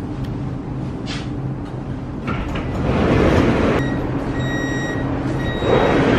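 Siemens Inspiro metro train heard from inside the carriage: a steady low hum with two swells of rushing noise, about three seconds in and again near the end. Faint steady high tones sound between the swells.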